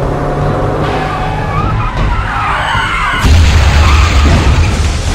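A car crash heard from inside the car: engine and road noise, a wavering tyre squeal of a skid from about two seconds in, then at about three seconds a sudden loud, deep crashing impact lasting about two seconds as the car crashes and its windscreen shatters.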